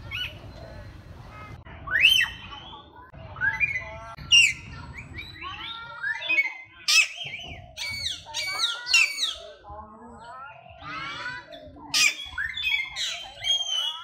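Mixed aviary birds, parakeets and mynas, calling: a run of short, shrill squawks and chirps that sweep up and down in pitch, coming thickest in the second half.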